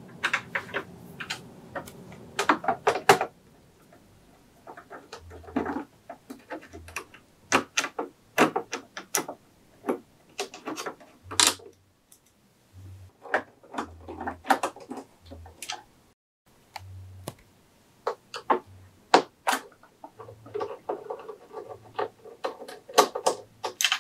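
Irregular small clicks, ticks and scrapes of a screwdriver working screws out of a Singer Confidence Quilter sewing machine's plastic housing, with occasional dull knocks as the casing is handled.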